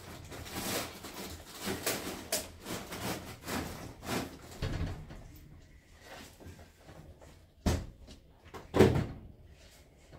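Clattering and scrabbling of a small wheeled shopping trolley as a cat climbs on its bag and metal handle, with two sharp knocks about a second apart late on.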